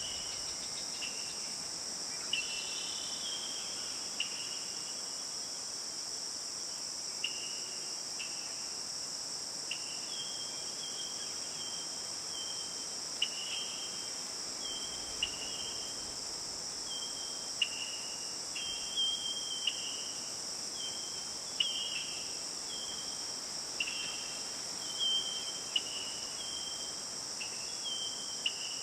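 Steady, high-pitched chorus of insects such as crickets or cicadas in a forest, with short chirping notes repeated about once a second over it, more often in the second half.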